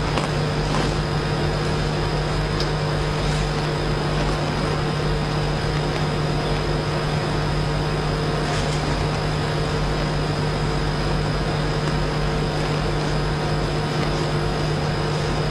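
Steady background hum and hiss, holding several constant tones, with a few faint brief rustles.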